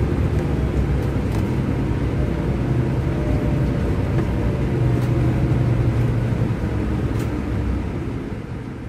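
Scania K400IB coach's rear-mounted engine heard from inside the passenger cabin while under way: a steady low drone over road noise, fading out near the end.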